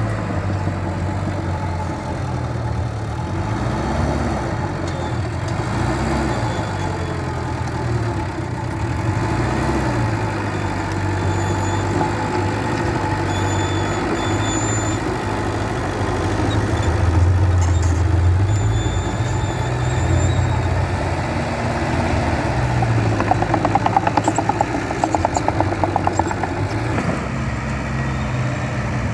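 Bulldozer's diesel engine running under load while pushing soil, its note rising and falling, with a spell of rapid clattering for a few seconds near the end.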